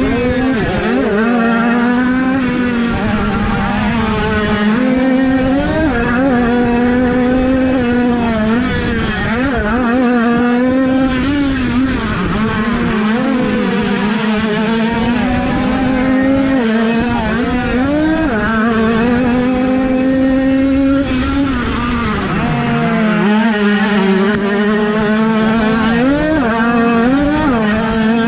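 Several small 50cc two-stroke motocross bikes racing, their engines revving up and down over one another while one holds a fairly steady high note.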